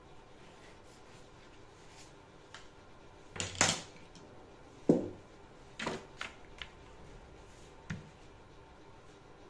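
A few short knocks and scrapes of drafting tools handled on a worktable while a pattern is marked out on paper, the loudest about five seconds in.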